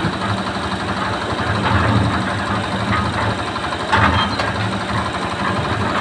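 Concrete mixer machine running with a steady engine drone, and a few brief louder clatters over it.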